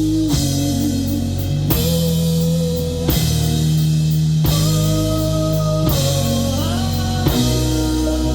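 Live band playing an instrumental passage: sustained bass and guitar chords with a strong drum hit about every second and a half, and sliding guitar notes near the end.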